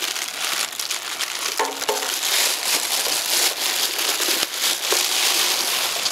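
Clear plastic packaging bag crinkling and rustling steadily as a foot pedal is unwrapped from it, with a few light clicks.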